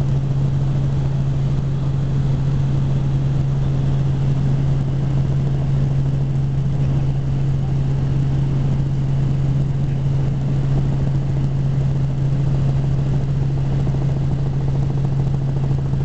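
Helicopter in flight, heard from on board: a steady, loud drone of rotor and engine with a strong low hum held unbroken throughout.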